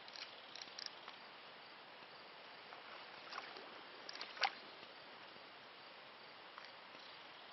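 Faint outdoor stream ambience: a steady low hiss with a scatter of small clicks and splashes, the sharpest about four and a half seconds in.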